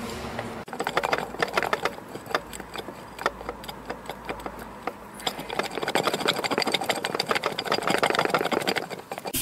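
Ball bearing around a shaft in a scooter engine case clicking and rattling as metal parts move against each other: a fast, irregular run of small clicks that starts about a second in and gets busier in the second half.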